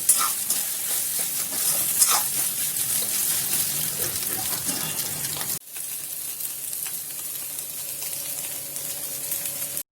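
Food sizzling in a frying pan, with a spoon or spatula stirring and knocking against the pan a couple of times. About halfway through it changes abruptly to a steadier sizzle, which stops suddenly near the end.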